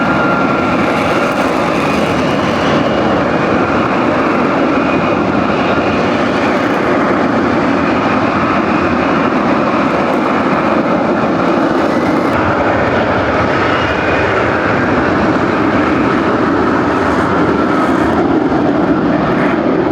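Loud, steady aircraft engine noise from an airplane in flight, with faint high tones drifting slightly in pitch.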